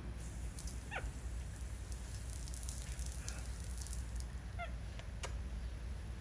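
A baby capuchin monkey gives two short squeaks, one falling in pitch about a second in and another near the end, over a steady low hum, with a single click just after the second squeak.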